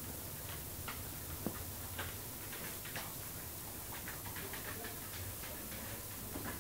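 Cocker spaniel puppies snuggled against an adult cocker spaniel: faint, irregular wet smacking clicks from the dogs' mouths, roughly two a second, over a low steady hum.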